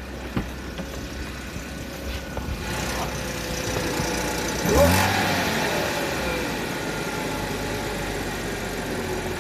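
2009 Audi A6 3.0T's supercharged V6 engine running at idle, with one quick rev about halfway through that falls back to idle. The owner is asking whether a noise from it is timing chain rattle.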